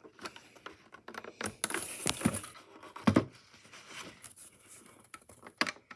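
Fingers pushing and scraping at the plastic battery-door latch on a Bell & Howell portable cassette player's case: a run of small clicks and scrapes, with louder knocks about two and three seconds in.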